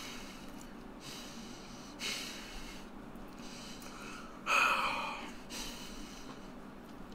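A man breathing heavily in and out, with several noisy breaths; the loudest, a sharp snort-like breath, comes about four and a half seconds in.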